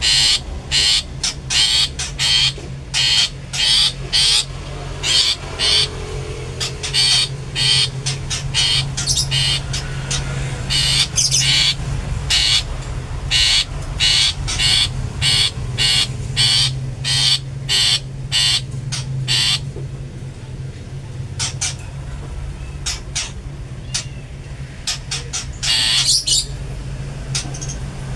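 Long-tailed shrike (cendet) giving short, harsh 'toet toet' calls, repeated about twice a second, thinning out after about twenty seconds, then a quick cluster near the end. This call is used as a lure to provoke other shrikes into calling.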